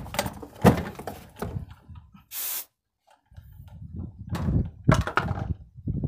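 Irregular knocks and clunks of tools and equipment being handled, with a short burst of hiss about two seconds in.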